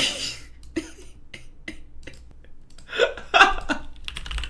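A man's stifled, breathy laughter: a short burst at the start, a few light mouse clicks, then another brief laughing sound about three seconds in.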